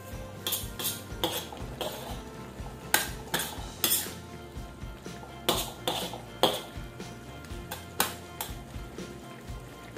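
Metal spatula clinking and scraping against a steel wok while stirring vegetables in broth: about a dozen sharp, irregular clinks.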